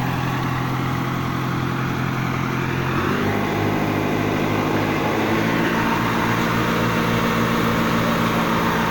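Fire truck engine running its water pump steadily, its engine speed shifting about three seconds in and again a couple of seconds later, with the hiss of water spraying from the nozzles of a spray bar.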